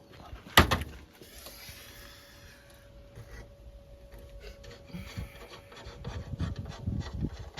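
Steel bracket parts being worked by hand: one sharp, loud knock about half a second in, then quieter scraping, with a run of irregular knocks and rubbing in the last couple of seconds over a faint steady hum.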